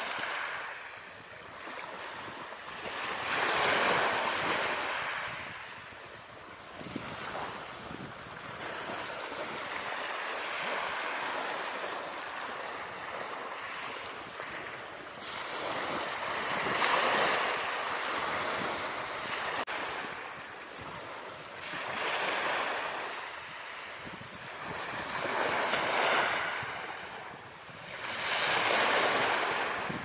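Ocean waves sound effect: surf washing in and out, the hiss of breaking water swelling and falling back every four to six seconds.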